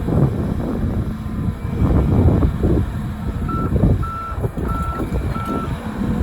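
Volvo EC300E excavator's diesel engine working hard while its bucket pats down fill soil in repeated heavy thumps. About halfway through, a reversing alarm sounds four short even beeps.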